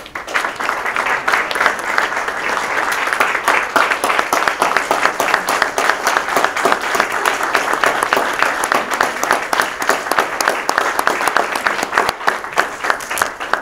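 An audience applauding: many hands clapping at once, beginning suddenly and dying away near the end.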